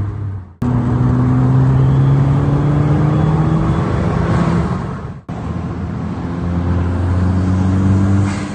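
Dodge Dart Aero's turbocharged 1.4-litre four-cylinder, fitted with an aftermarket cold air intake, running with revs climbing slowly as it pulls. Two sharp cuts split it into separate clips, the last holding steadier revs that rise a little near the end.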